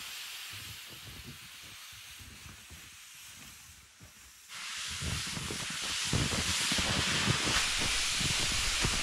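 Steady hiss of wind on the microphone in snowy open country, faint at first, then jumping louder about four and a half seconds in, with irregular low thuds under it.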